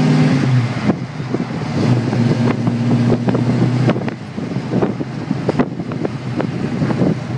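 Big-block 454 V8 with headers and two-chamber Flowmaster mufflers heard from inside the cabin while cruising: a steady low exhaust drone that eases about four seconds in into an uneven, choppier rumble. Wind noise on the microphone runs underneath.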